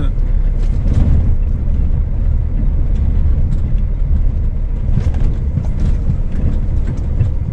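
Scania S500 truck's diesel engine running as the rig rolls slowly over rough concrete, heard from inside the cab as a steady low rumble with scattered light knocks and rattles.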